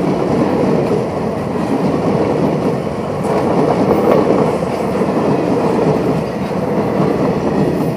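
Passenger coaches of an Indian Railways express train running past at close range, the steady noise of steel wheels on the rails.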